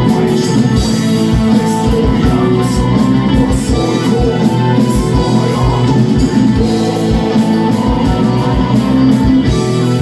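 Live metal band playing: electric guitars, bass and a drum kit with frequent drum hits, with a flute carrying a melody on top.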